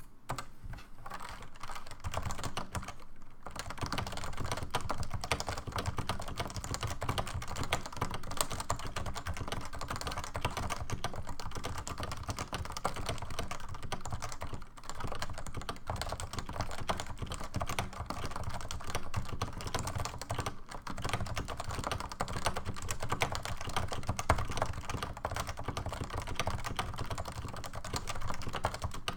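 Stock Realforce 87U tenkeyless keyboard with 55g Topre electrostatic-capacitive switches being typed on continuously, a fast run of keystrokes with a few brief pauses.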